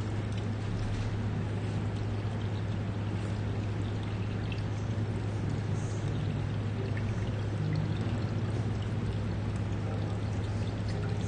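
Steady, unchanging background noise: a constant low hum with an even hiss over it.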